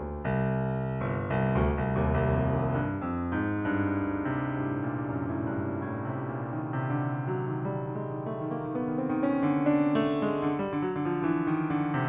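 Background piano music: a steady run of notes and chords.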